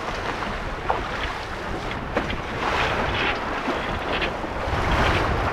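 Wind buffeting the microphone and water rushing along the hulls of an F-27 trimaran sailing downwind in the waves, swelling twice in the second half.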